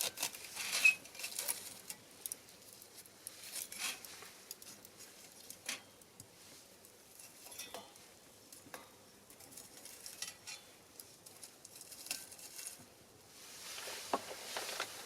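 Small fire of pine cones and cherry branches crackling, with irregular sharp pops and snaps, busiest in the first couple of seconds. Near the end a soft hissing rush rises under the crackle.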